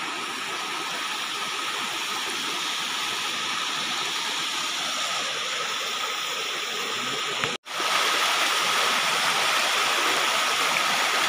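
Shallow river water rushing steadily over rocks, with a faint steady high whine underneath. The sound breaks off for an instant about seven and a half seconds in and comes back slightly louder.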